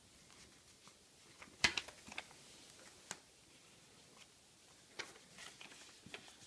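A folded sheet of A4 office paper being handled and creased by hand: a few crisp paper crackles and clicks, the sharpest about one and a half seconds in, with faint rustling around five seconds in.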